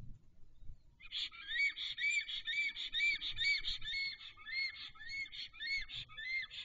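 Black stork calling on its nest: a long run of rising-and-falling whistled notes, about two a second, starting about a second in.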